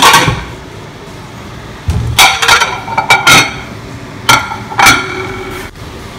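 White ceramic dinner plates clinking against each other and the granite countertop as they are taken out and set down: a series of sharp clinks, each with a short ring.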